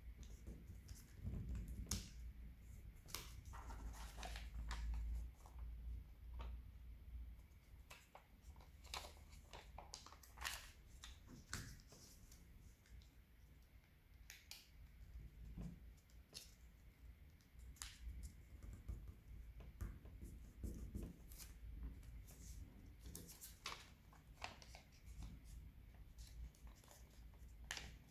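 Origami paper crinkling and rustling faintly as hands fold and crease it, in scattered soft crackles.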